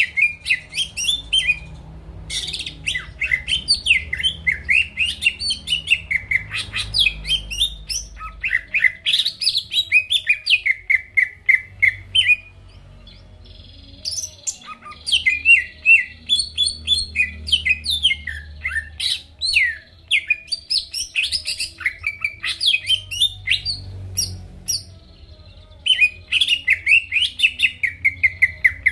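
Cucak ijo (green leafbird) singing continuously in a fast, varied run of chirps and sweeping whistles, with a short pause about halfway through.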